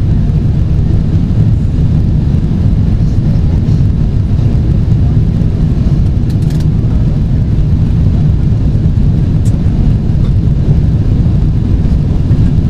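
Steady low rumble of cabin noise inside a Boeing 777-300ER airliner in flight: engine and airflow noise heard from a seat over the wing.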